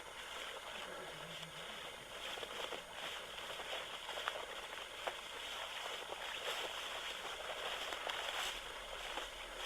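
Footsteps and rustling in outdoor brush, with irregular small crunches and scrapes over a steady hiss.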